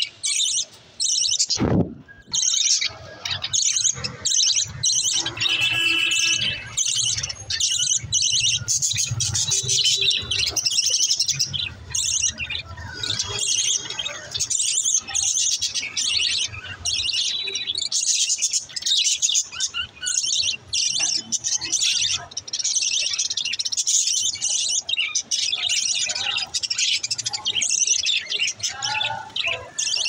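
A flock of budgerigars chirping and chattering together without a break: many overlapping quick, high chirps.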